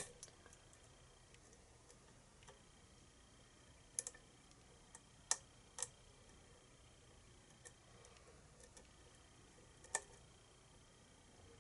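Sparse, faint clicks of a lock pick and tension wrench working the pins of a pin-tumbler challenge lock on a Schlage keyway. About half a dozen clicks come several seconds apart, the sharpest right at the start and another near ten seconds.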